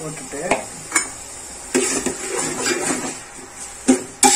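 A spoon stirring chopped onions and oil in an aluminium pot, scraping and clinking against the metal, with a couple of sharp knocks against the pot near the end.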